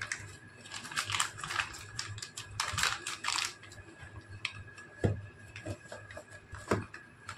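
Plastic packaging bag rustling as a small cooling fan inside it is handled and packed back into a cardboard box. Two sharp knocks come in the second half.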